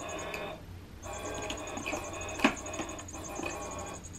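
Catty Whack electronic cat toy running, a steady whirring sound with several held tones that cuts out briefly just after half a second in and then resumes. A sharp click about two and a half seconds in.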